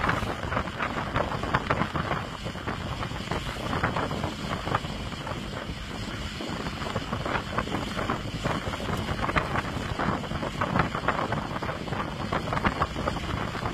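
Motorboat under way towing a parasail: wind rushing over the microphone mixed with the boat's running and water slapping and splashing at the hull in frequent short splashes.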